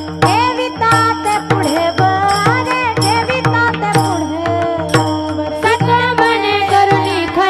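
A woman singing a Varkari devotional song, her melody gliding and ornamented over a steady held drone, with percussion keeping an even beat about twice a second.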